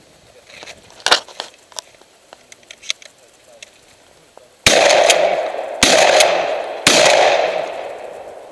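Three shotgun shots fired about a second apart, each ringing out in a long echo. A few light clicks and a knock from handling the gun come before them.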